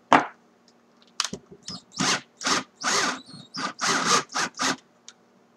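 Keyless chuck of a 14.4 V Black & Decker cordless drill being twisted open by hand. A sharp click comes first, then a run of about nine short rasping turns.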